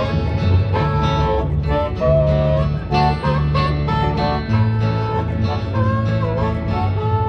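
Acoustic string-band music: a guitar playing an instrumental passage of an old-time country song over a steady bass rhythm, with some notes sliding in pitch.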